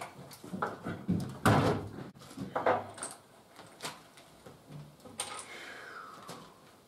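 A stepladder knocking and clattering as it is lifted and set down aside, a series of sharp knocks with the loudest about a second and a half in. It is followed by footsteps and lighter knocks, with a short sliding scrape about five seconds in.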